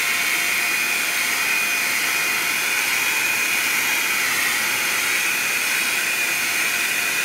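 Handheld hair dryer running steadily on high, a rush of air with a thin steady whine, drying wet watercolour paint on paper.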